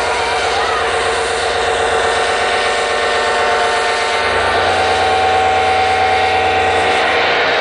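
A loud, continuous rumbling drone with rapid, even low pulsing, like a helicopter effect, played over a festival mainstage sound system; steady sustained tones come in near the end.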